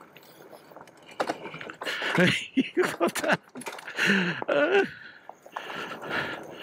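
A rider's wordless grunts and exclamations over the rattling clatter of an Engwe Engine Pro folding fat-tire e-bike jolting across a rock garden. The loudest of the shouts come in short bursts about two seconds in and again around four seconds.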